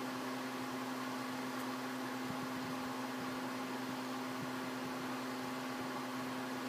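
A steady machine hum, with one constant low tone over a faint hiss, unchanging throughout.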